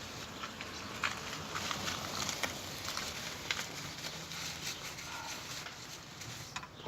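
Hand-working noises in a car's engine bay: scattered light clicks, taps and rustles of tools and fuel-line fittings being handled, over a low steady hum, with a sharper knock near the end.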